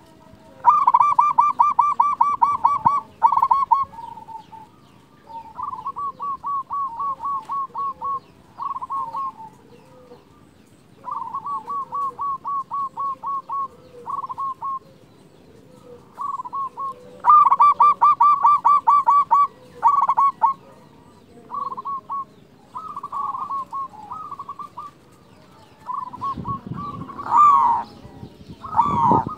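Local-strain zebra dove (perkutut lokal) singing its cooing song: phrases of rapid, rolling notes repeated with short pauses between, the loudest phrases about a second in and again past halfway. Near the end a louder, rougher burst of rising calls cuts across the cooing.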